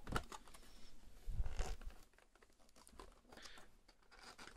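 Plastic packaging crinkling and rustling as it is handled, with a few light clicks; the crinkling is loudest about a second and a half in, then quieter.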